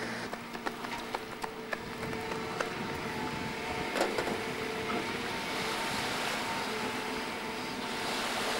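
Outdoor waterside ambience: steady wind rushing over the microphone with water, under a faint steady hum. A few light clicks come in the first few seconds and one sharper knock about four seconds in.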